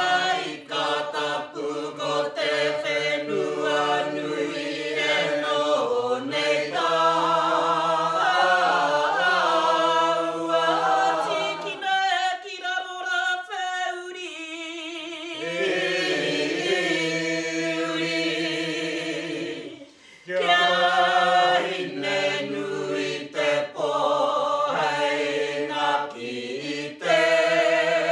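A group of men and women singing a Tūhoe mōteatea, a traditional Māori chant, without instruments. About twelve seconds in, the lower voices drop out for a few seconds and only higher, wavering voices carry on. Just before twenty seconds in, the singing breaks off briefly and the full group comes back in.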